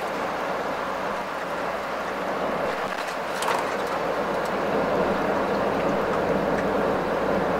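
Cab interior noise of a Scania R450 truck cruising on the motorway: a steady drone of diesel engine and tyres on the road that gets a little louder about five seconds in, with a brief crackle about three and a half seconds in.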